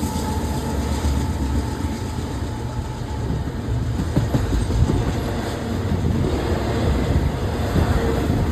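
Freight train rolling past: a steady rumble of wheels on rail, with irregular clicks over the rail joints.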